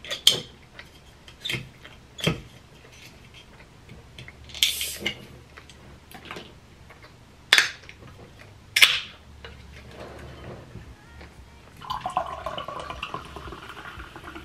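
Sharp clicks and knocks as an aluminium soda can and a straw are handled on a table. From about twelve seconds in, Sprite is poured from the can into a glass, splashing and fizzing.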